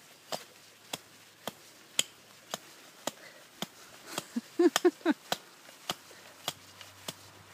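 A hatchet chopping into the trunk of a small spruce, with sharp, evenly spaced blows about twice a second. A few short vocal sounds come about halfway through.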